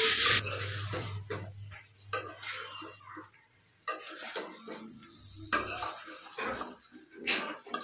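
A spoon stirring chicken pieces in a metal pan on a gas stove, knocking and scraping against the pan every second or two. A loud frying sizzle cuts off suddenly just after the start.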